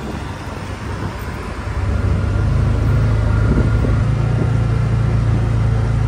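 Engine of a farm utility vehicle running as it drives along, a steady low drone that gets louder about two seconds in.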